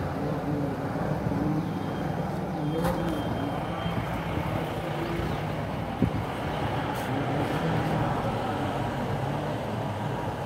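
Steady low mechanical drone of a running motor, with one sharp click about six seconds in.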